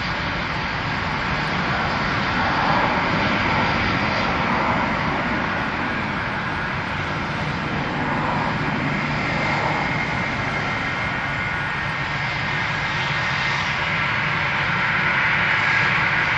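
Jet engines of a Boeing twin-jet airliner running: a steady rushing noise with a faint high whine that grows a little stronger near the end.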